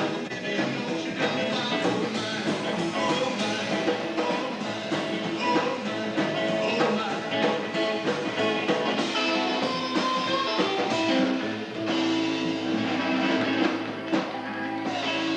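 Rock band playing a song, with guitar prominent.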